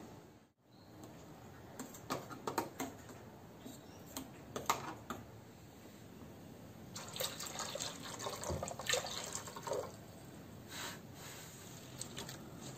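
Liquid pouring from a plastic jug into an empty aluminium pressure cooker, splashing for about three seconds, after a few light clicks and knocks of utensils being handled.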